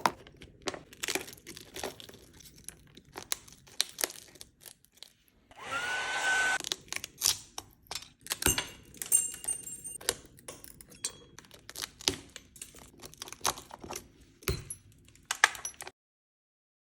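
Scattered light taps and clicks of tools against the phone's cracked back glass during repair, with a single burst of blowing air from a small motorised tool, about a second and a half long, around six seconds in.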